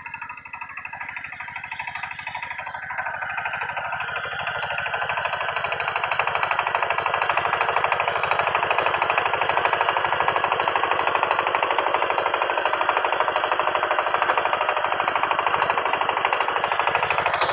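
Kamco power tiller's single-cylinder diesel engine running under load as its rotary tiller works wet paddy soil: a rapid, even chugging that grows louder over the first six seconds, then holds steady.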